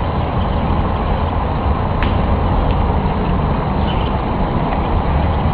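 A loud, steady, pitchless rumble with most of its weight low down: the kind of unexplained outdoor 'strange noise' that people film, likened to a giant flame.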